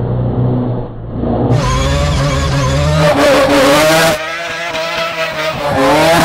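Rotary-engined Mazda RX-7 drift car revving hard on and off the throttle while drifting, its pitch rising and falling. For the first second and a half it is a duller, lower-quality recording. The engine drops off briefly about four seconds in, then revs up again.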